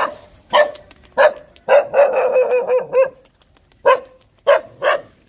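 A dog barking: single short barks, then a longer run of quick barks about two seconds in, then three more short barks near the end.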